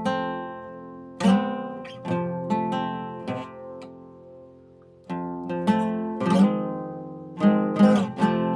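Solo acoustic guitar: chords strummed and notes plucked, each ringing out and fading. There is a lull of about a second just past the middle before the playing picks up again with quicker strums.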